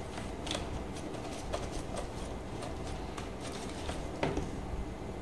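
Faint handling noise from handheld test meters: a few soft, separate clicks and taps as the units and the coax connector are picked up and moved, over a low steady hum.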